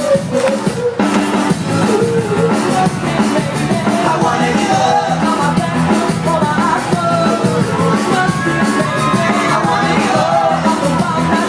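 Live pop band playing through a PA system: a steady drum beat under a melody with singing.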